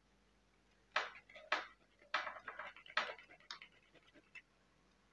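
Pistachio being grated on a flat stainless-steel hand grater: a handful of short rasping scrapes, starting about a second in.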